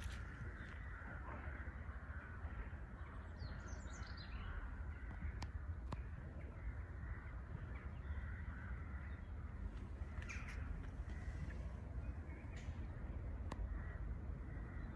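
Birds calling now and then, about four seconds in and again about ten seconds in, over a steady low rumble.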